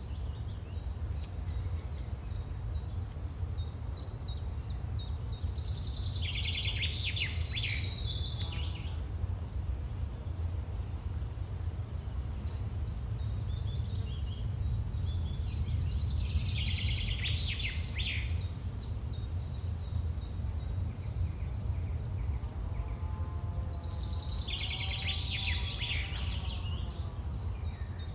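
Outdoor nature ambience: a steady low rumble underneath, with a songbird giving a short, dense phrase of high song three times, roughly every nine seconds, and a few scattered chirps between.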